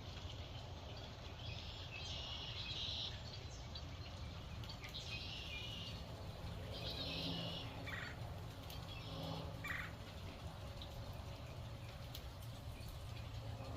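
Birds calling at a feeder: about four high, rough bursts of chatter about a second long each, with a couple of short sharper calls between them, over a steady low rumble.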